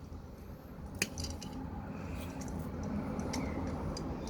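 Hands handling a doll's small plastic eye mechanism and pull string: a few sharp little clicks and light rustling over a low, steady background.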